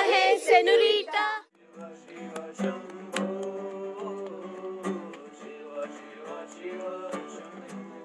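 Music: a voice singing over the first second and a half, then a sudden break and guitar strumming.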